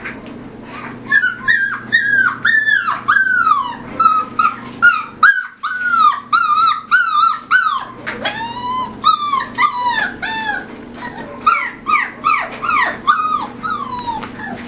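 Collie puppies yipping in play: a long run of short, high calls, each rising and then falling in pitch, two to three a second, with a brief break about five seconds in.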